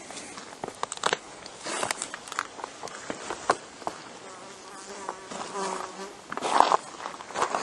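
Footsteps crunching irregularly over dry ground, with a flying insect buzzing close by for about two seconds in the middle.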